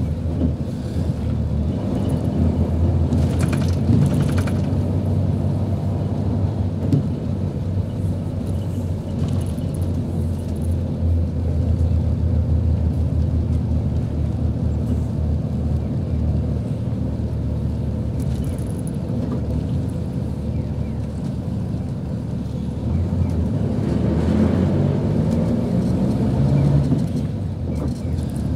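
Inside the cabin of a 1994 Hino U-RU2FTAB high-decker coach on the move: a steady low engine and road rumble, swelling louder for a few seconds near the end.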